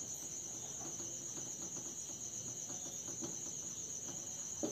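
A steady, evenly pulsing high-pitched insect trill goes on throughout. Faint short scratches of a marker writing on a whiteboard sound over it.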